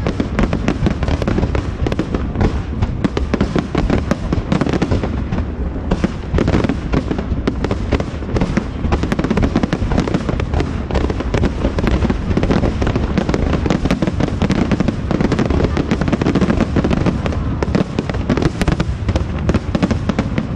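Aerial fireworks going off in a dense, unbroken barrage: rapid overlapping bangs and crackling with a deep rumble underneath.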